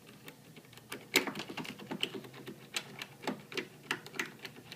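A lock pick clicking rapidly and irregularly against the pins of a deadbolt lock, knocking the pins up again and again (cycling).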